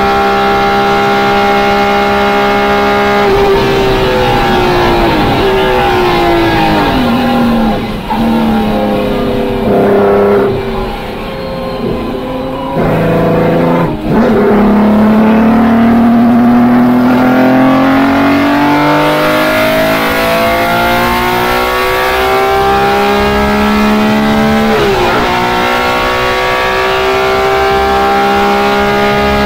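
BMW M1 race car's straight-six engine heard from inside the cockpit, running at high revs. About three seconds in the pitch drops in steps as the car slows and shifts down, with a sharp click near the middle, then climbs steadily through the gears back to a steady high pitch.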